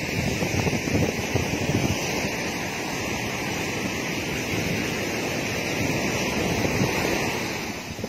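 Ocean surf breaking and washing up onto a sand beach, a steady rushing hiss of waves and foam. Wind buffets the microphone throughout.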